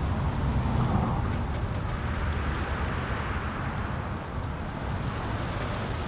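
Strong wind rushing through a pine tree's needles and branches, with the low rumble of wind buffeting the microphone. The rushing swells a little around the middle.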